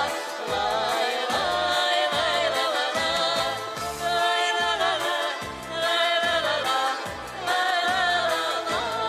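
Music: a Russian folk song performed with singing voices over instrumental accompaniment with a steady beat.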